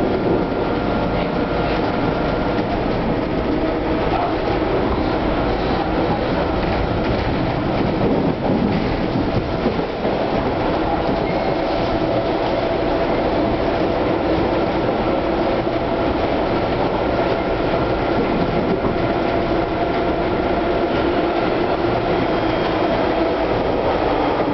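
Hawker Siddeley H5 subway car running at speed, heard from inside the passenger car: a steady, loud rumble of wheels on rail with a few even tones held above it.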